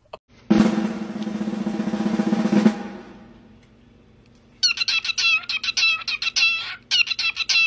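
A person makes a long, strained vocal sound for about two seconds. After a pause, a cockatiel chirps in quick runs of sharp, high notes, stops briefly, then starts again.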